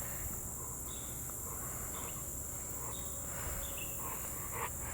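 A steady, high-pitched chorus of insects buzzing continuously.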